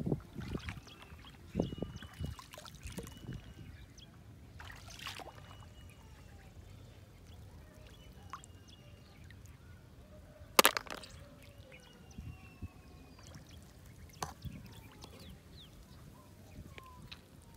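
Light splashing and trickling of shallow water as a hand reaches in and lifts snails out, with scattered small clicks and one sharp click about ten seconds in.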